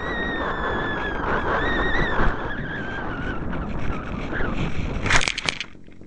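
Air rushing over a discus-launch glider in flight, picked up by its onboard camera, with a whistle that slowly falls in pitch as the glider loses speed. About five seconds in comes a short cluster of knocks as it touches down in the grass.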